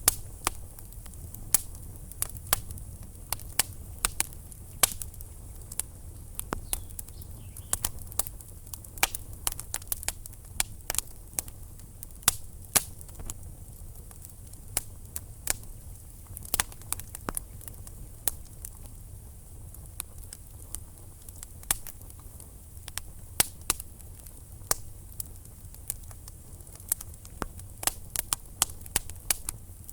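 Wood logs burning in a fireplace, crackling with frequent irregular sharp pops and snaps over a low steady rumble of the fire.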